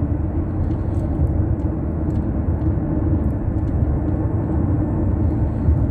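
Steady low rumble of a car driving on a highway, heard from inside the cabin: continuous road and engine noise.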